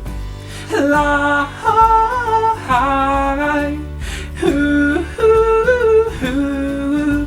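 A man singing a wordless melody of long held notes, with guitar accompaniment.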